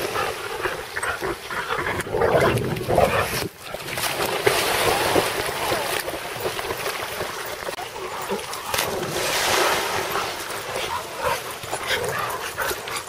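Several dogs splashing as they leap into and swim through water, with barks from the dogs on the bank, in several louder surges of splashing.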